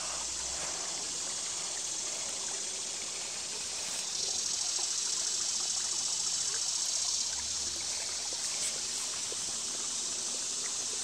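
Small creek running and trickling over rocks, a steady rush of water that grows a little louder for a few seconds in the middle.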